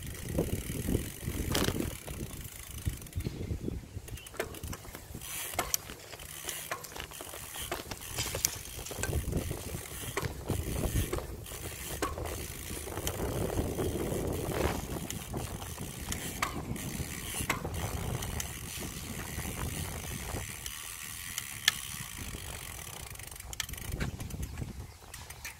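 Bicycle being ridden on a paved path: irregular mechanical clicks and rattles from the bike over a steady low rumble.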